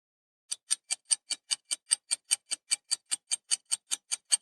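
Countdown-timer ticking sound effect: a clock-like tick about five times a second, starting about half a second in and running on steadily, marking the time to answer a quiz question.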